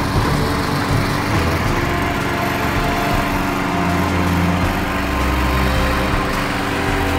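Gas-powered walk-behind lawn mower engine running steadily.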